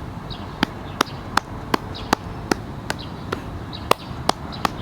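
Loose hollow fist tapping the outer side of the lower leg, a steady run of sharp slaps nearly three a second. This is percussion self-massage of the outer calf, done to loosen it.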